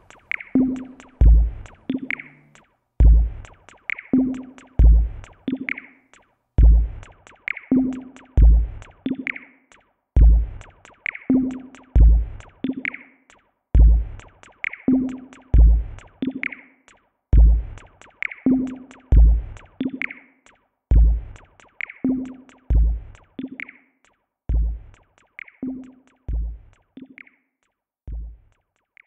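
Electronic background music: a slow, steady drum-machine beat of kick and snare hits, fading out near the end.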